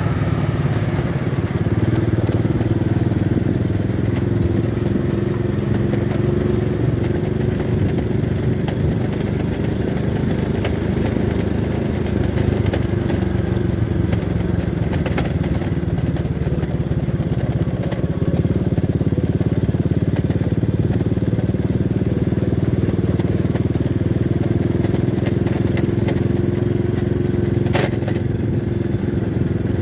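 A small motorcycle engine running at a steady cruise, heard from the saddle, its note wavering slightly, with road noise over it. There is one sharp click near the end.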